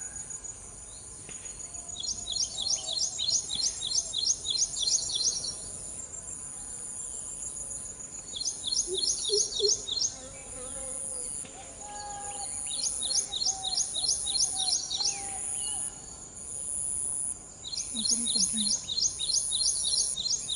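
Outdoor insect chorus: a steady high-pitched buzz that pulses continuously, with bouts of rapid, evenly repeated high chirps lasting two to three seconds, recurring every few seconds.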